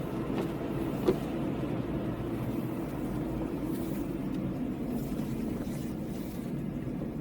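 Car driving, with a steady rumble of engine and road noise and a single sharp knock about a second in.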